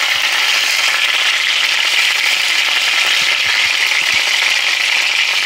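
Beef top round roast searing in hot lard in a pot: a steady sizzle of the fat frying around the meat as its sides are charred to a crust.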